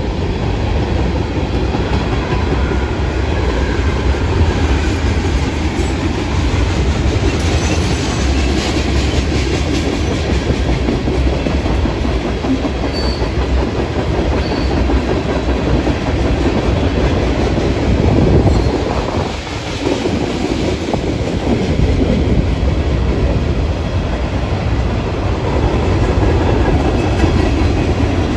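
Mixed freight train of covered hoppers and tank cars rolling past, a steady loud rumble and clatter of steel wheels on the rails with a clickety-clack over the joints, easing briefly about two-thirds of the way through.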